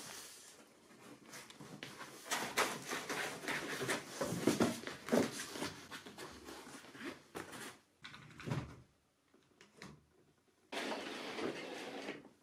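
Rustling, shuffling and light knocks of a person moving about on a wooden floor and handling things such as a blanket, with a short quiet gap and then a stretch of steady rustling noise near the end.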